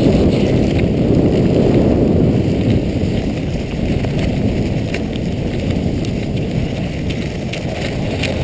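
Wind buffeting the microphone of a camera carried by a skier moving at speed: a steady low rush, with a fainter hiss of skis sliding on packed snow and scattered light ticks above it.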